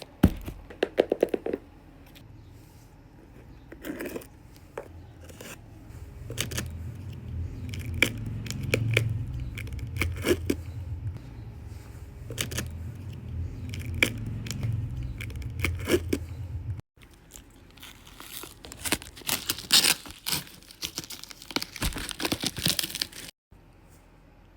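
Packaging being handled and torn open: irregular tearing, crinkling and sharp clicks and taps, over a low hum for much of the middle.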